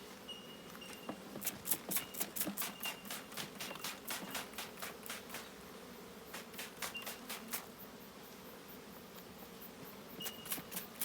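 Honeybees humming steadily from an open hive, overlaid by many quick clicks and ticks that come in clusters.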